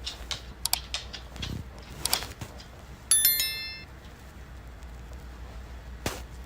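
Small knocks and rustling, then about three seconds in a bright ding of several high ringing notes struck in quick succession that fade within a second. A single knock comes near the end.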